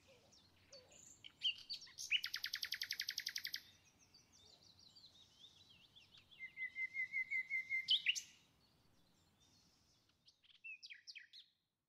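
A songbird singing: scattered high chirps and two rapid trills, the second lower and steadier than the first, then a few more chirps near the end.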